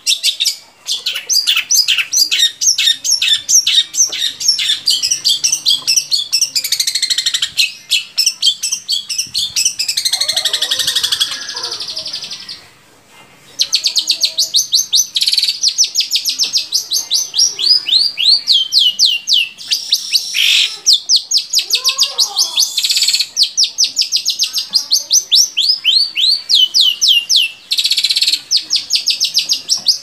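Long-tailed shrike (cendet) singing a fast, unbroken stream of sharp chirps and quick whistled notes, several a second, with downward-sweeping whistles strung in runs and one short pause about midway.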